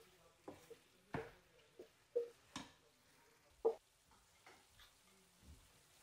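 Wooden spatula knocking and scraping against a metal pot and a non-stick frying pan as thick tomato-onion puree is scraped out and stirred: a string of sharp, irregular knocks with a short ring, the loudest about three and a half seconds in, then softer stirring.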